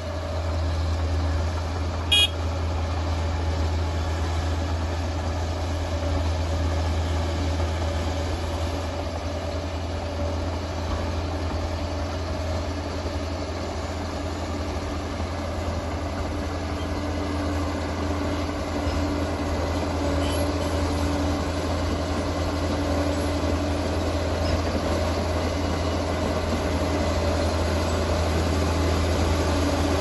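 Liebherr 746 crawler dozer's diesel engine running steadily as the machine pushes soil with its blade, growing slightly louder near the end. A single sharp click about two seconds in.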